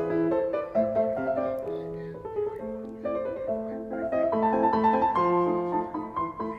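Background piano music: a steady run of melody notes over chords.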